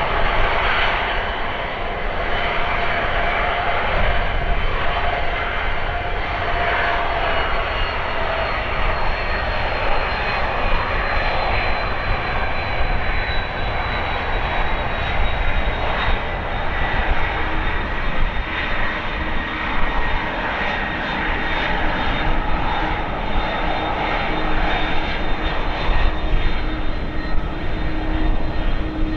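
Airbus A330-300 airliner's twin jet engines: a loud, steady rush with high whining tones that slowly fall in pitch, and a lower steady hum joining about halfway through.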